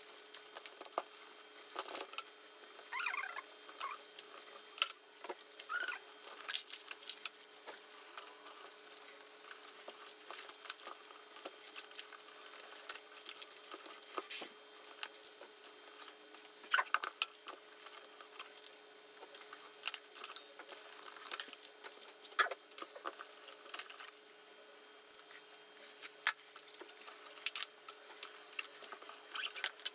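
Handling noise from assembling rack gear: scattered small clicks, taps and rustles of parts and cables being fitted, over a faint steady hum.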